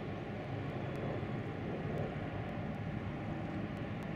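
Airbus A400M Atlas's four TP400 turboprop engines and eight-bladed propellers giving a steady drone as the aircraft banks through a steep display turn.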